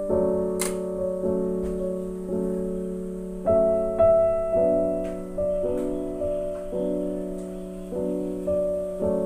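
Background piano music: slow chords and single notes, a new one struck every half second to a second and left to ring and fade.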